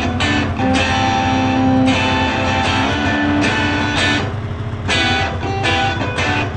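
Background music: a guitar-led song in a stretch without singing, with steady bass and chords changing about every second.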